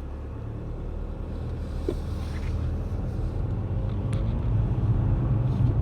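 Car engine and road noise heard from inside the cabin as the car pulls away and gathers speed: a low rumble that grows steadily louder.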